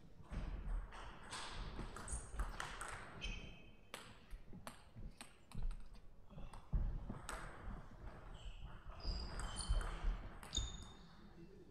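Table tennis rallies: a celluloid-type plastic ball clicking sharply off rubber-faced bats and the table in quick back-and-forth runs, with shoes squeaking briefly on the court floor.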